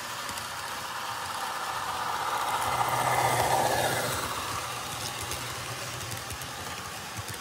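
HO-scale model passenger train running past close by: wheels rolling on the track, with the sound-equipped locomotive's decoder playing a diesel engine sound. The sound swells to its loudest about three and a half seconds in as the locomotive goes by, then fades.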